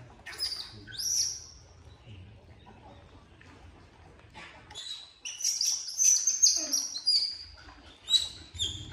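Birds chirping: a couple of short high calls about a second in, then a quick run of high chirps through the second half.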